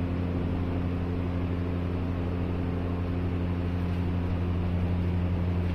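Steady low hum with a hiss over it, unchanging, as from a running appliance or motor.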